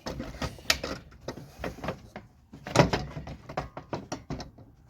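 Radiator being worked down into its mounts in a car's engine bay: a string of knocks, clicks and clunks as parts bump and scrape, the loudest clunk about three seconds in.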